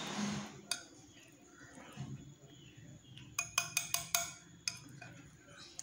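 Wire whisk stirring thick wheat-flour batter in a bowl. It clicks against the bowl once near the start, then in a quick run of about six knocks around three and a half seconds in, and once or twice more near the end.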